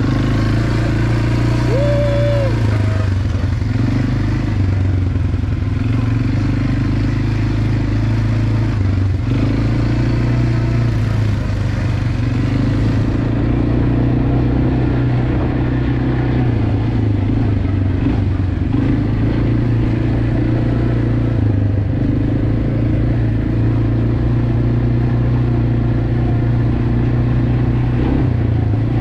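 Quad bike engine running steadily while riding, its pitch rising and falling a little with the throttle.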